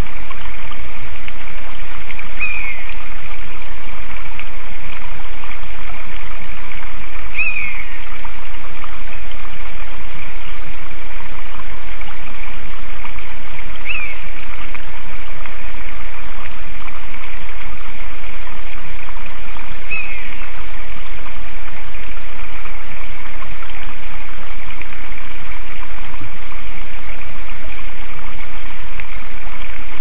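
A bird gives four short, falling calls about six seconds apart, which the uploader takes for a common buzzard, though not with certainty. The calls sit over a loud, steady rushing noise.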